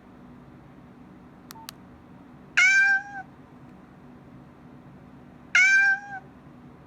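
Nokia 105 phone's speaker playing a short alert tone twice, two identical pitched calls about three seconds apart, each about half a second long. Two faint clicks come shortly before the first.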